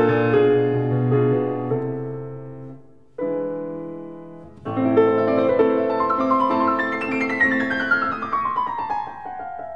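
Background piano music: a gentle piece of sustained chords, broken by two short pauses, with a run of notes falling in pitch near the end.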